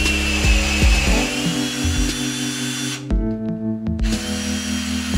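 Cordless drill turning a tap to cut a thread in a metal block held in a vise, its motor giving a faint whine, over background music with a steady beat.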